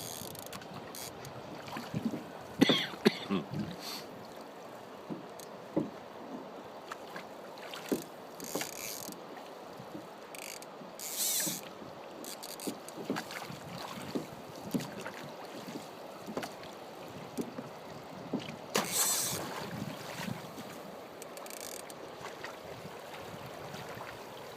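Steady rushing background of water and wind around a fishing boat, with scattered knocks and clicks from gear and hull: a cluster of knocks about three seconds in, and short hissing bursts about eleven and nineteen seconds in.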